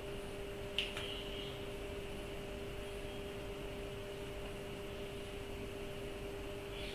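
Room tone with a steady faint hum, a single pitched tone. A short click comes about a second in and another near the end.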